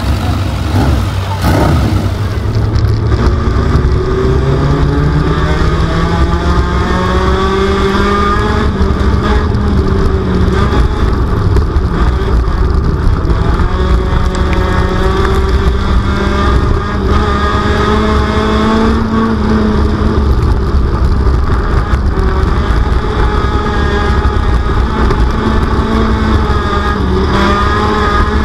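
Dirt track race car's engine heard from inside the car as it laps the oval, its note climbing as it speeds up and falling back as it slows, over a steady low rumble.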